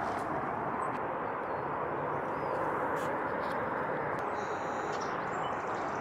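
Steady outdoor background noise of the marsh, with a few faint, short, high bird calls about two-thirds of the way through.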